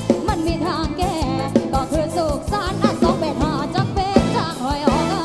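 Live band music: drums keep a steady beat under sustained bass and a wavering lead melody line.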